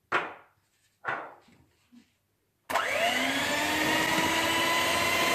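Two short knocks, then an electric hand mixer switched on about halfway through, its whine rising briefly as it spins up and then running steadily as its beaters whisk eggs, sugar and oil in a bowl.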